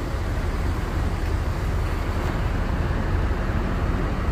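Diesel engine of a coach bus idling: a steady low rumble, with the even background noise of a bus terminal.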